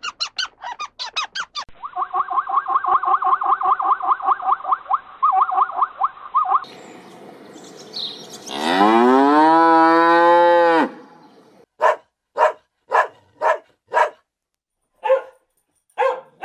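A cow mooing once, a long call that rises then falls in pitch, heard midway. Before it come rapid repeated chirping calls, and after it a series of about eight short calls, roughly two a second.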